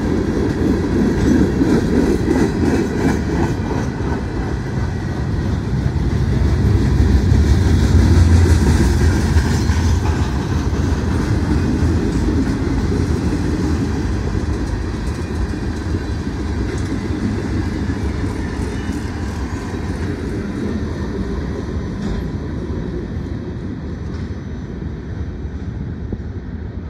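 Freight train's hopper and tank cars rolling past close by, a steady noise of steel wheels on rail with clicks over the rail joints. The noise fades near the end as the last cars pass and move away.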